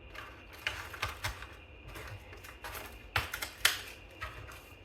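Irregular clicks and taps of a laptop's bottom cover being pressed back into place and flattened after a RAM upgrade, two louder snaps about three seconds in.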